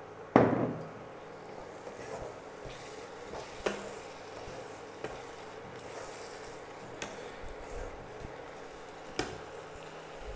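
Tomato purée and spice masala sizzling in a non-stick kadai while being stirred with a wooden spatula, with a loud knock about half a second in and a few lighter taps of the spatula against the pan.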